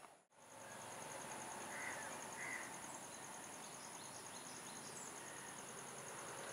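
Insects chirping in quiet rural background noise: one steady high shrill and a second fast, evenly pulsing chirp. A brief dropout comes just after the start, and two short bird-like chirps sound about two seconds in.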